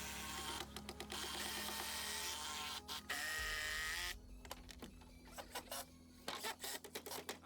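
A small motor-driven tool whirs for about four seconds, then stops, followed by a run of sharp clicks and knocks, over background music.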